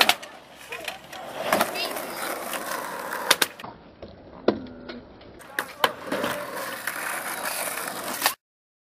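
Skateboard wheels rolling on tarmac, broken by several sharp clacks of the board popping and landing during tricks. The sound cuts off suddenly near the end.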